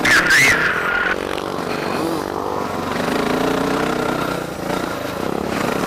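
Dirt bike engine running under way on a rough trail, its note rising and falling with the throttle. A loud, wavering high-pitched sound comes over it in about the first second.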